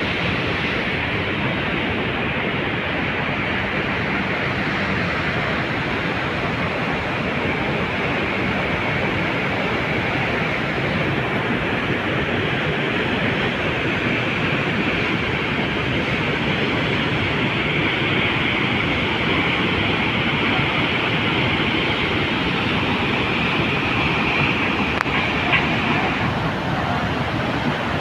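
Steady, loud rush of the Aharbal waterfall and its white-water rapids pouring through a rock gorge.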